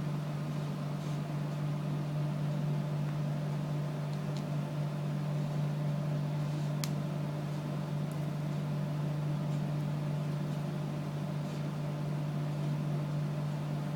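A steady low hum that does not change, with one faint sharp click about seven seconds in.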